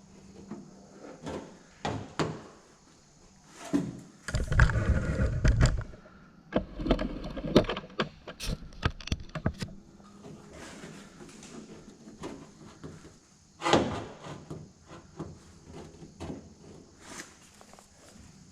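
Light hammer taps and knocks on a car door's sheet-metal skin, with the flat pry tool shifting and bumping inside the door shell; the tapping is how the body man finds where the tool is pressing against the skin. A longer, heavier stretch of knocking and rumbling comes about four to six seconds in, and a single louder knock near the end.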